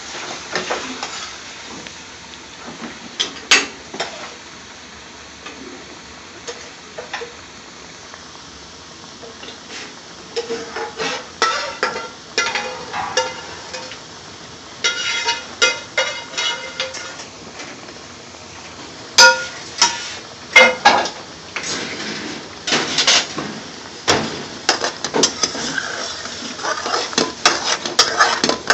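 A metal spoon clinks and knocks against an aluminium pan of simmering curry sauce, with dishes and pots clattering over a steady hiss. The knocks come in scattered clusters and are thickest in the second half.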